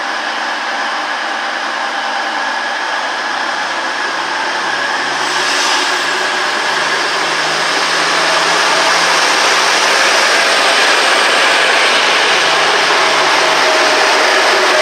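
Class 222 Meridian diesel multiple unit passing close along a station platform, its underfloor diesel engines running. The sound grows louder from about four seconds in as the cab comes level, then holds steady as the coaches go by.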